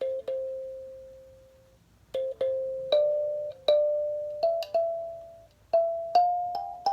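Kalimba played slowly note by note: about a dozen plucked metal tines, each ringing out and fading away. There is a pause of nearly two seconds after the first two notes.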